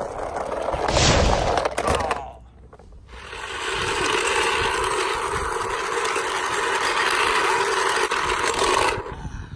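Hard plastic toy truck wheels rolling on concrete. A rough rolling noise is broken by a short lull a little over two seconds in, then runs steadily from about three and a half seconds in until just before the end.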